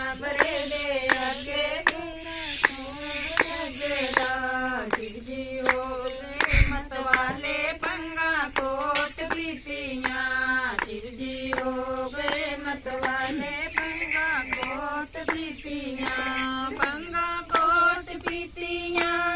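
A group of women singing a Hindu devotional bhajan together, holding and bending long notes, with a steady beat of hand claps.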